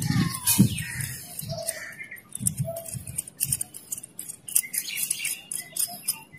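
Scattered bird chirps, with light clicks and taps of small metal airbrush parts being handled and unscrewed.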